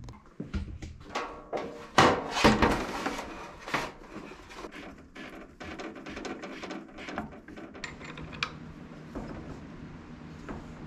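Hands handling the metal parts of a welding positioner: clunks, knocks and scrapes, loudest in a cluster about two seconds in, then lighter scattered clicks.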